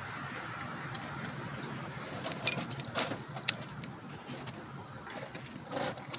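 Light metallic clicks and rattles of small metal parts being handled, most of them from about two to three and a half seconds in and again near the end, over a steady background hiss.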